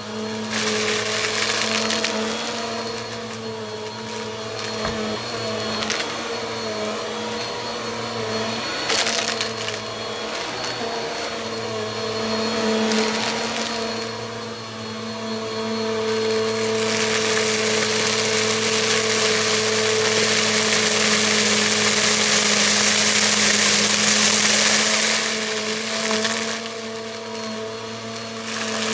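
Bissell vacuum cleaner running: a steady motor hum under a rush of air that rises and falls. The airflow hiss grows louder for several seconds in the second half, then eases near the end.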